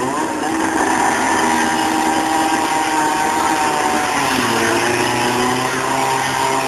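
A small engine on firefighters' rescue equipment revs up and runs at high speed, wavering under load, with a slight drop in pitch about four seconds in.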